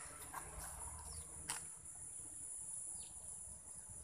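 Faint ambience of insects, crickets by their sound, with a steady high-pitched trill, a faint click about a second and a half in, and a short chirp near the three-second mark.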